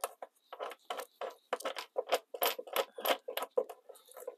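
Quick, irregular clicks and clinks of small metal hardware being handled and fitted at the base of a porcelain RV toilet.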